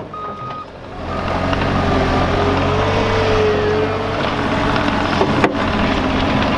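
Cat skid steer's diesel engine running under load, rising in pitch about a second in as it is throttled up. Its reversing alarm beeps briefly at the start, and there is a single sharp click near the end.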